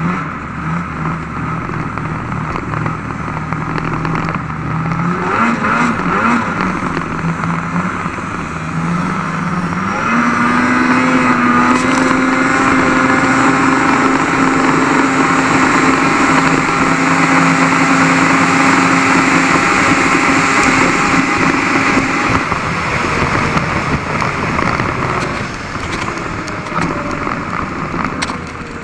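Snowmobile engine running under way. Its pitch and loudness rise about ten seconds in and hold steady at higher revs, then ease off again in the last third.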